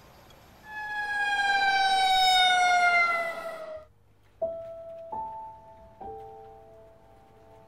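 A loud tone with many overtones sliding slowly down in pitch for about three seconds, then cut off abruptly. After it come a few sparse, sustained music notes that ring and fade.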